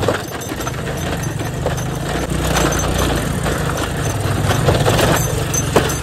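Motorcycle engine running under load on a steep hill climb, getting a little louder about two seconds in.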